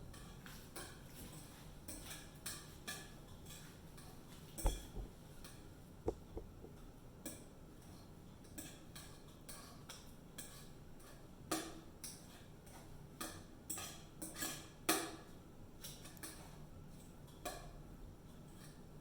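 Fork clicking and tapping irregularly against a bowl while mashing a mixture of egg yolks, butter and seasonings for deviled eggs. The loudest knocks come about five seconds in and again about fifteen seconds in.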